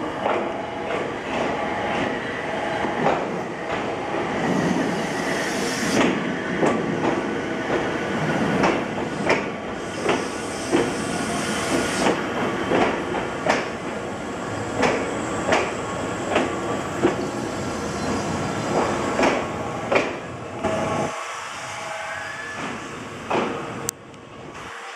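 Ohmi Railway 820-series electric train (set 821F) pulling slowly into a station: its wheels clack over the rail joints at a slowing rhythm under a steady running rumble. The rumble cuts off about 21 seconds in as the train comes to a stop, and there are a couple of clunks near the end.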